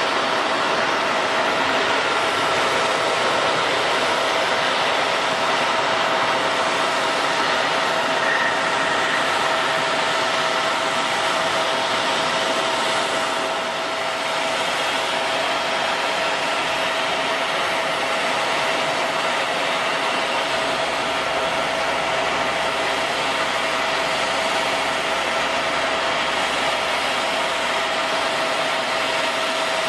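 Airliner jet engines running steadily at low power: an even rushing noise with a steady high tone over it that holds throughout.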